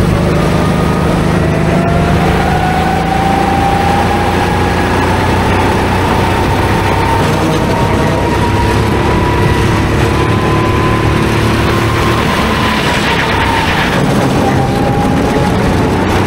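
Go-kart engines running at speed, their pitch slowly rising and falling with the revs, over a steady rush of noise.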